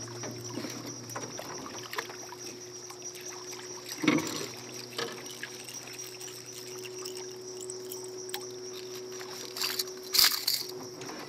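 Water splashing and dripping as a hooked peacock bass thrashes beside the boat and is lifted out with a lip gripper. The biggest splashes come about four seconds in and near the end, over a steady low hum.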